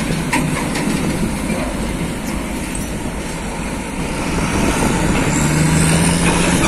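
Diesel trucks passing close by: engine rumble and tyre noise, with wind buffeting the microphone. Over the last couple of seconds a steady engine note comes in as a cab-over tractor unit pulls a container trailer past.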